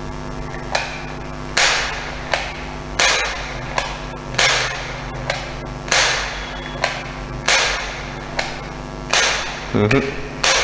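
All-plastic Little Gunner 6697A foam-dart toy revolver being cocked and fired again and again: a light click, then a sharper snap, about every one and a half seconds, some seven times. The dart does not shoot out: the gun is failing to fire.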